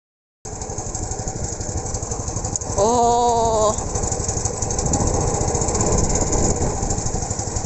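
Small fishing boat's engine running steadily under wind noise, heading for shore ahead of a storm. About three seconds in, a short pitched tone is held for under a second.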